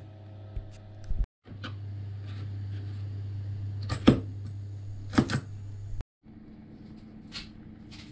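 Kitchen knife cutting potato on a plastic chopping board: a few sharp knocks about four and five seconds in, over a steady low hum. After an abrupt cut, a quieter steady hum with a few faint ticks, with diced potato boiling in a saucepan.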